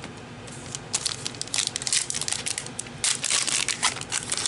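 Foil wrapper of a trading card pack being torn open and crinkled in the hands, in two spells of crackling with a short lull between them.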